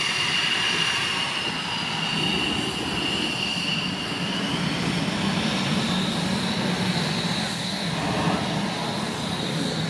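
Northrop F-5's twin turbojet engines running, a steady rushing noise with a thin high whine that shifts slightly higher about four seconds in.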